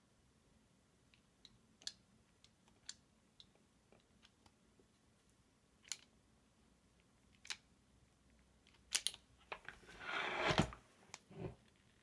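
Light clicks of plastic and metal as a wire with a blue insulated terminal is set into the jaws of a hand crimping plier, then a short crunchy squeeze about ten seconds in as the terminal is crimped, ending in a low thud, with one more knock just after.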